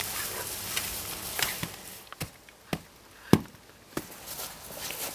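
Spade digging into soil at night: a rustling scrape of earth, then four sharp chops of the blade about half a second apart, the loudest about three seconds in.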